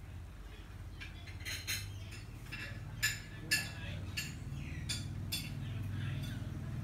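Plastic spoon knocking and scraping against a ceramic bowl: a string of light clicks over a low steady hum.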